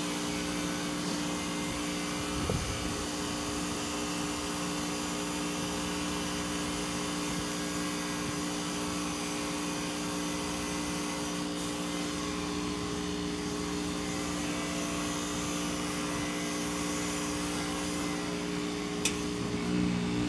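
2012 Goodman 2-ton heat pump outdoor unit running with a steady hum as it comes out of a short defrost cycle. Near the end comes a sharp click, and the hum changes pitch as the unit switches back to heat mode.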